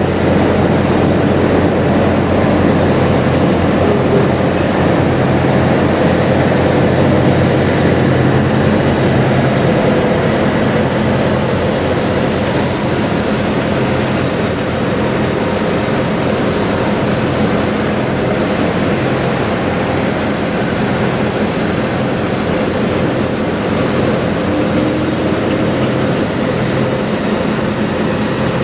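Steady drone of an idling diesel truck engine, a low even hum with a constant high hiss over it.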